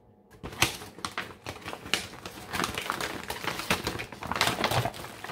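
Food packaging crinkling and rustling as meal-kit ingredients are handled, a dense run of small crackles and taps that starts about half a second in.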